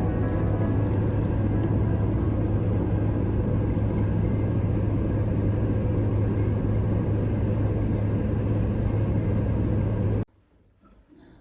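A steady, loud low rumble with a constant deep hum, like a running vehicle or machine, which cuts off suddenly near the end.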